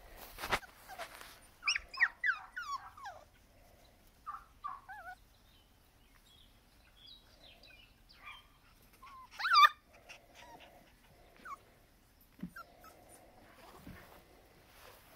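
Schnauzer puppies whining and yipping as they play, in short runs of high squeals that fall in pitch. The loudest yelp comes about nine and a half seconds in.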